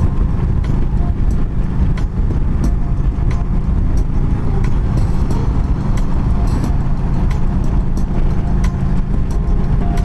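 Yamaha V-Star 1300's V-twin engine running at highway cruising speed, together with wind and road noise: a steady, dense low rumble.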